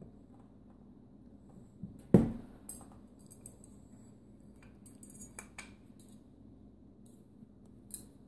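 Fan motor housing parts handled by hand, giving scattered small clicks and knocks, with one sharp knock about two seconds in and a few quick clicks a little past the middle.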